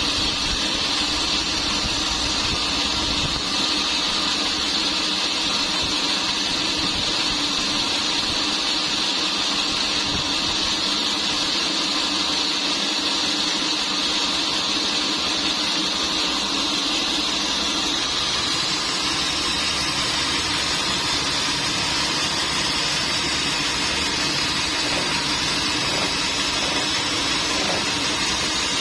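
Sawmill machinery running steadily: a constant mechanical hum with a broad high hiss, which shifts slightly about eighteen seconds in.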